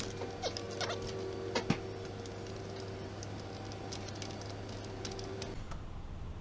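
A few light metallic clicks and scrapes from hand tools as an injector is worked loose from a first-gen Cummins 12-valve cylinder head, over a steady low background hum.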